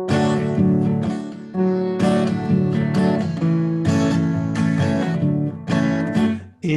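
Acoustic guitar with a capo, strummed in a steady rhythm as a song's intro, the chords changing about every second. The strumming drops away briefly just before the end.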